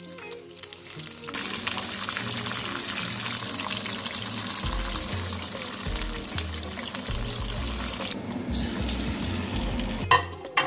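Hot oil sizzling in a frying pan as sausages fry, over background music with a stepping bass line. The sizzle drops away about eight seconds in, and a short, loud burst of sizzling comes near the end.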